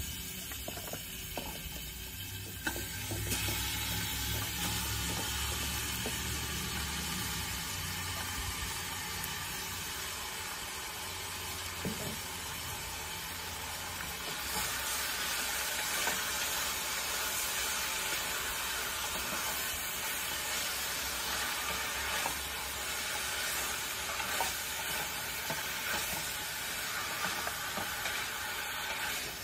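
Deer meat sizzling as it is sautéed in a hot stainless steel stockpot, with a wooden spoon stirring and scraping against the pot. The sizzle swells about three seconds in.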